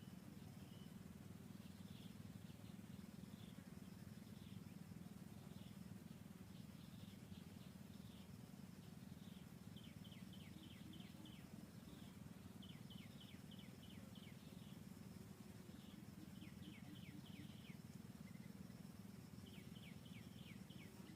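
Quiet background: faint high chirps in quick runs of five to eight notes, typical of small birds, recurring every second or two over a low steady hum.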